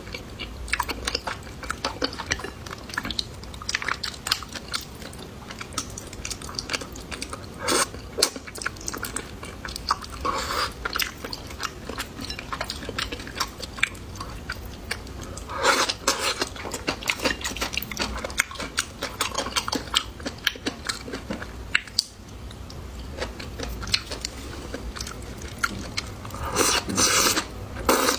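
Close-miked chewing and biting of food, with irregular short crunches and clicks, louder clusters about halfway through and near the end.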